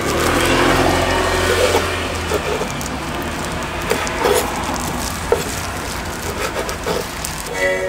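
A knife knocking on a wooden cutting board as sundae is sliced, a few scattered strokes, over street noise. A vehicle rumbles past in the first two seconds or so.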